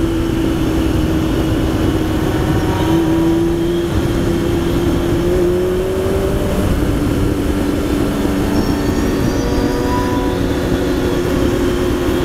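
Sport motorcycle engine running steadily at road speed, heard from the bike itself with wind rush on the microphone; its note rises a little a few seconds in, then settles back.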